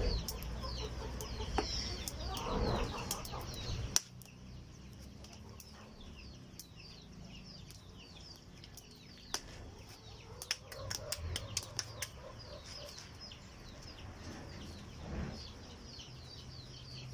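Chickens clucking with many short high peeps throughout, as from chicks, and scattered sharp clicks. A low rumble under the first four seconds stops abruptly.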